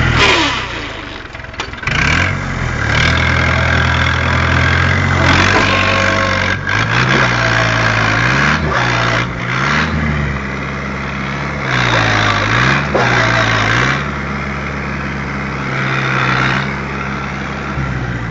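Fiat 640 tractors' diesel engines running under load as one tows the other, bogged down in mud, out on a rope. The engine speed drops and picks up again several times in the middle.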